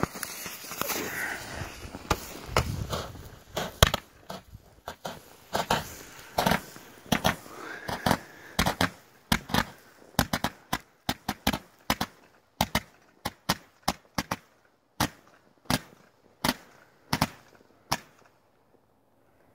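A 60-shot Roman candle: the fuse hisses for a couple of seconds, then the tube fires star after star, each shot a sharp pop. The early shots come irregularly, with crackle between them. Later they settle to about two pops a second, then stop a little before the end.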